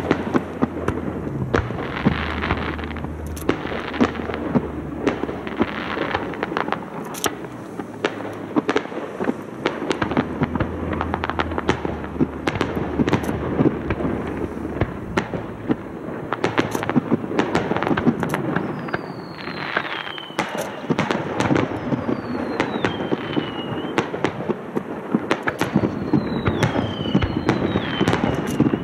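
Aerial fireworks display: a dense, continuous run of bangs and crackles from bursting shells, with three falling whistles in the last third.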